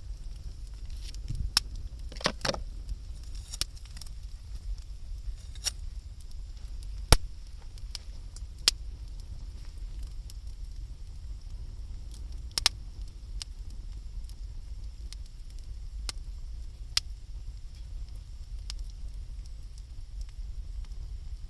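Wood campfire crackling, with scattered sharp pops at irregular intervals, the loudest about seven seconds in, over a steady low rumble.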